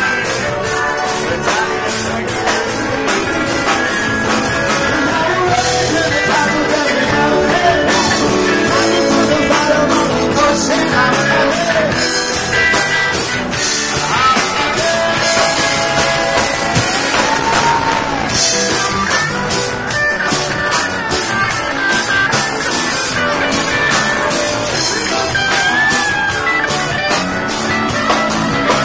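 Live rock band playing loudly: electric guitar and drum kit with a steady cymbal beat, and a voice singing over it.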